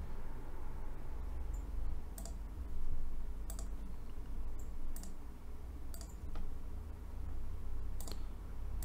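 Scattered single clicks of a computer mouse, about one a second, over a low steady hum.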